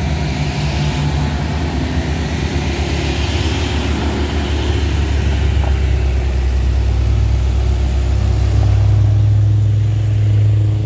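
Loaded Mitsubishi L300 pickup's engine working hard as it pulls away up a steep climb after stalling there. The engine grows louder over the last few seconds.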